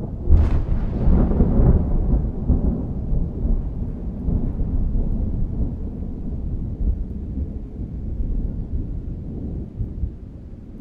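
Thunderclap sound effect: a sharp crack about half a second in, then a long, low rumble that slowly dies away.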